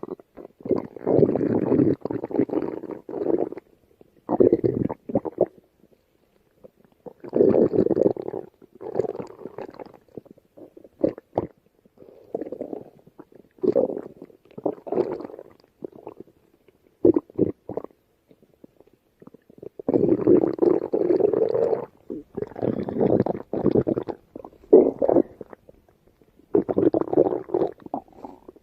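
Stomach growling and gurgling in irregular bouts of a second or two, broken by short silences and a few quick clicks.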